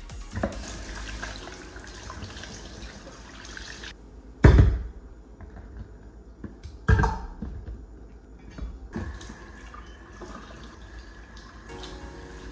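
Water running and splashing in a stainless steel sink as raw chicken drumsticks are scrubbed and rinsed by hand, with two loud thumps about four and a half and seven seconds in.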